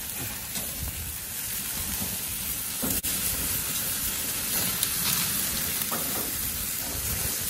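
Pork spare ribs and chicken drumsticks sizzling on a hot gas grill over open flames: a steady hiss over a low rumble, broken for an instant about three seconds in.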